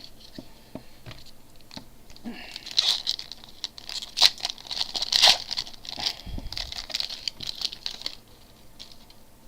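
Foil trading-card pack wrapper being torn open and crinkled, an uneven crackle with sharp ticks lasting about six seconds from a couple of seconds in.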